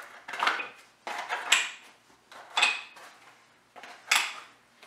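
Small boxed brake pads and parts being pulled out of a cardboard shipping box: four short rustling clatters of cardboard and hard parts knocking together, about a second apart.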